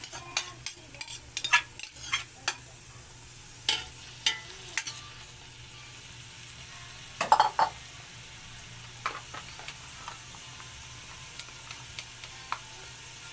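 Chopped onion sautéing in hot oil in a pan: a steady sizzle, with a utensil scraping and knocking against the pan as it is stirred. A cluster of louder knocks comes about seven seconds in, and the stirring thins out after that.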